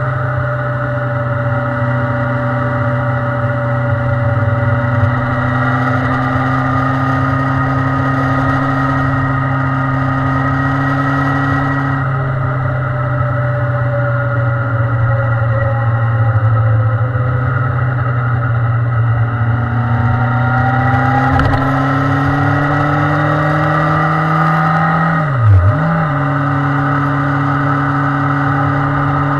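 Honda Hornet 900's inline-four engine pulling at a steady road cruise, heard close up from the bike. The engine note climbs slowly, drops about twelve seconds in, climbs again, then dips sharply for a moment with a louder blip near the end before settling.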